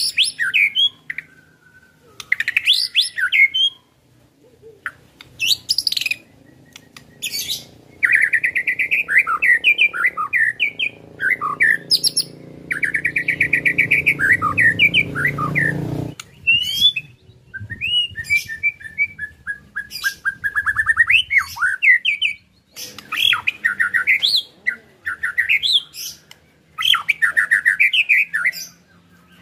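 White-rumped shama (murai batu) singing in loud bursts of varied whistled phrases and fast rattling trills (ketrekan), with short pauses between bursts.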